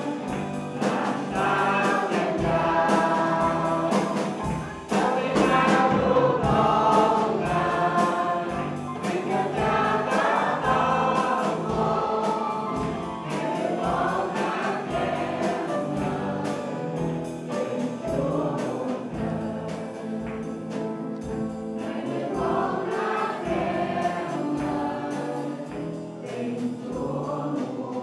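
Live worship band performing a gospel song: a group of male and female singers singing together over a drum kit keeping a steady beat.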